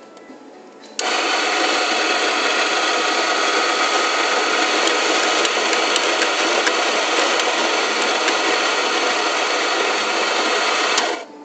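Electric coffee grinder grinding beans: the motor starts abruptly about a second in, runs steadily for about ten seconds, then stops abruptly.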